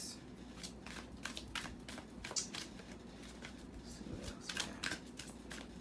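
A deck of oracle cards being shuffled by hand, a quick, uneven run of soft card clicks and flicks.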